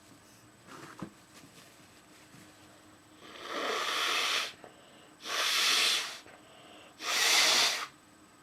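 A woman sneezing three times, each a breathy burst about a second long, the last the loudest. A faint click comes about a second in.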